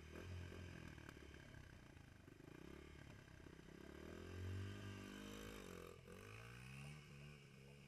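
Faint dirt bike engine revving, its pitch climbing and falling as the throttle is worked, with a sweep in pitch about six seconds in as a bike comes past close by.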